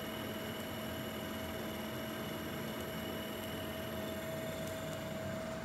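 Steady machine hum with a constant whine over a hiss, from a motor-driven test rig running. A few faint clicks come through.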